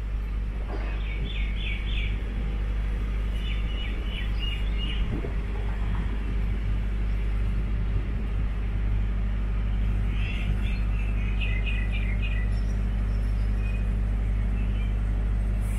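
Birds chirping in three short runs of quick notes over a steady low outdoor rumble.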